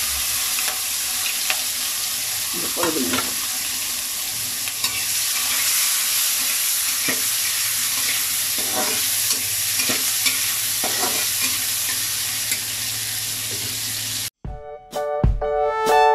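Prawns sizzling steadily in hot oil in a wok, with a spatula scraping and stirring now and then. About fourteen seconds in the sizzle cuts off abruptly and electronic music with a steady beat begins.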